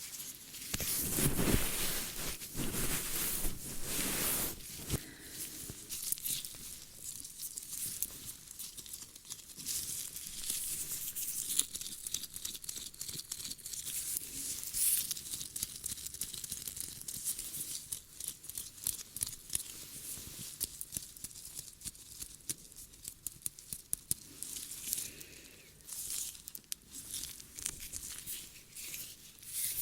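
Close-miked ear-cleaning ASMR sounds: dense crackling, scratching and rubbing right against the microphone. It is busiest and loudest in the first few seconds, then carries on more sparsely.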